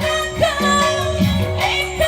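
A song playing, with a singing voice over instrumental backing.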